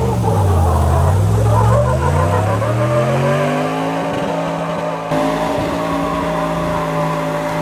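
Lifted Jeep Wrangler Unlimited's engine revving hard under a burnout, its pitch dipping briefly and then climbing over a few seconds before holding at a steady high note.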